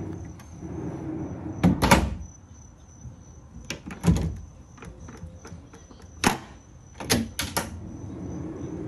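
Heavy-duty drawer slides running as a plywood drawer is pushed shut, closing with a knock, then another knock and a few sharp clicks from the drawer's key lock being worked.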